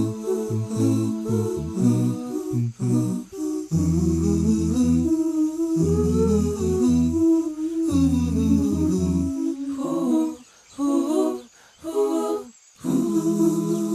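Background vocal music without instruments, a nasheed: voices humming and singing a melody. It drops out briefly twice near the end.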